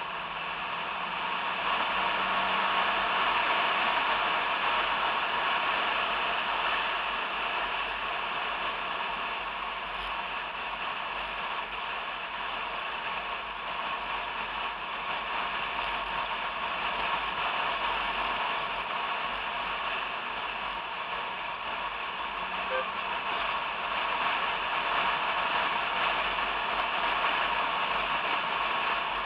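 A car driving at steady speed: even engine, tyre and wind noise that stays level throughout, with no distinct events.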